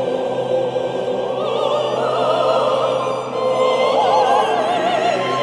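Men's choir singing sustained chords in a stone cathedral. From about a second and a half in, one voice with a wide vibrato stands out above the held chord.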